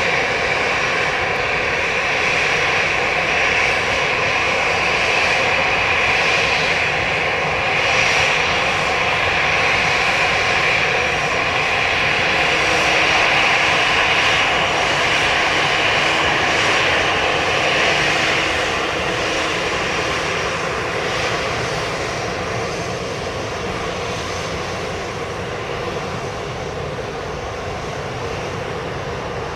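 Twin jet engines of an Air Canada Rouge Airbus A320-family airliner running at taxi power, a steady whine over a rushing hum. The sound is loudest as the jet passes close by and fades gradually over the last third.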